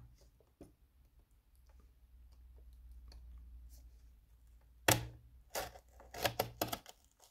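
Hobby knife cutting through the cardboard and plastic blister packaging of a toy car. It is quiet for a few seconds, then a quick series of sharp cutting clicks about five seconds in as the blade works through the stiff card.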